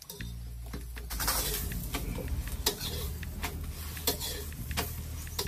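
Metal spatula scraping and tapping against an iron tawa as a stuffed paratha fries in oil, with sharp clicks over a sizzling hiss that grows louder about a second in.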